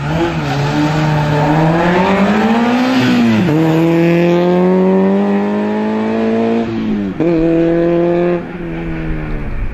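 Small hatchback race car's engine revving hard as it accelerates, the pitch climbing through each gear with two quick upshifts, about three and a half and seven seconds in. The sound drops back near the end.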